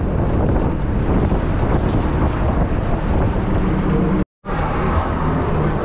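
Moving bus running along the road: a steady, loud rush of engine, tyre and wind noise, with wind buffeting the microphone. About four seconds in the sound cuts out briefly to silence, then resumes.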